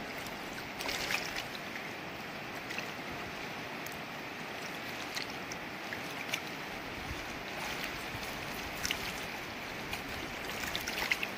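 Steady rushing of a wide river flowing, with a few light splashes now and then.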